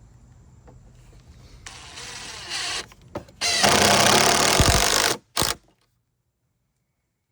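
DeWalt DCF801 12V impact driver driving screws into a wooden post, running in two bursts: a shorter one and then a longer, louder one, with a brief blip after. The sound then cuts off abruptly.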